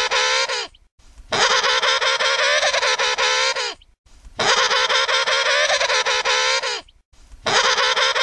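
Emperor penguin trumpeting: the same long, rich call looped, each call lasting a little over two seconds and coming about every three seconds.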